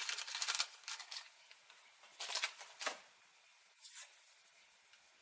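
Adhesive tape being pulled off a roll and torn: a rasping stretch in the first second, then two short rips around two and three seconds in.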